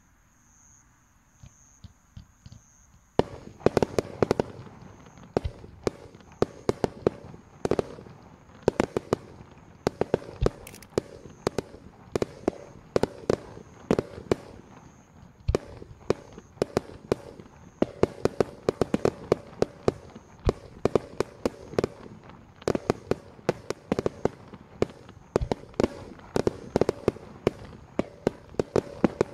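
Extra-large starmine fireworks finale: a rapid barrage of aerial shell bursts, bang after bang, several a second, over continuous crackling. It starts about three seconds in, after a few faint pops.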